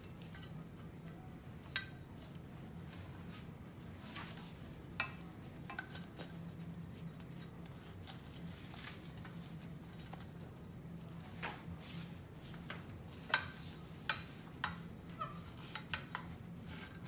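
Nylon strap webbing rustling and sliding as it is threaded through a cable-box shelf bracket, with scattered light clicks and knocks of the bracket and strap hardware, sharpest about two seconds in and again about thirteen seconds in. A steady low hum runs underneath.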